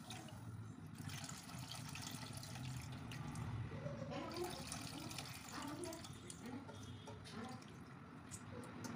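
Tamarind water poured into a hot aluminium kadai at the start, then the puli kuzhambu gravy simmering faintly over the gas burner.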